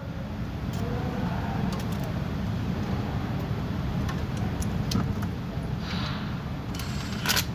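Scattered light metallic clicks and clinks of bolts and hand tools being handled, over a steady low rumble, with a louder short clatter near the end.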